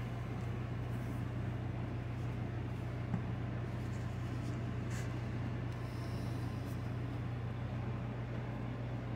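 Steady low hum with an even hiss from a running machine, unchanging throughout, with a faint tick about three seconds in.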